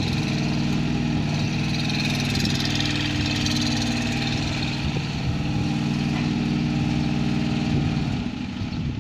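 Osanori OS13 mini excavator's engine running at a steady speed while the machine tracks and turns on asphalt. It drops in level near the end.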